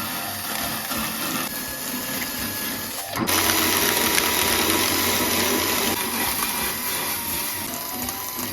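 A small power tool running steadily against a surface, a dense rasping noise that gets louder about three seconds in.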